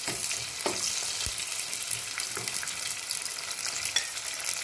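Sliced onions, green chillies and curry leaves sizzling steadily in hot oil in a stainless steel pot, with a few short scrapes of a spoon stirring them.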